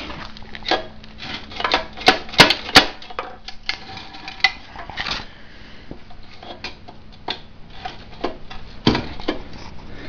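Irregular metallic clicks and clattering knocks from a small Tecumseh engine being handled and moved about on a concrete floor, with three sharp clacks close together about two to three seconds in and another knock near the end.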